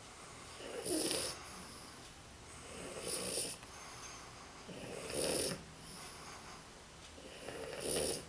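French bulldog snoring while asleep: four loud snores about two seconds apart, with quieter breathing between them.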